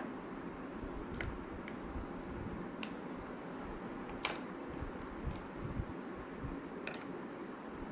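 Steady low room noise with about half a dozen short, sharp clicks scattered through it, the strongest a little past four seconds in.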